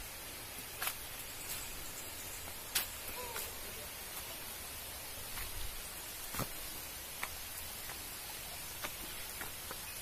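Footsteps on a leafy, rocky forest trail, with scattered crunches and knocks as the walker moves, over a steady hiss.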